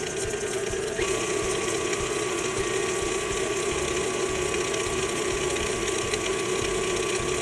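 KitchenAid stand mixer running steadily with its wire whisk, beating butter, brown sugar and cinnamon in a steel bowl: a continuous motor hum and whir.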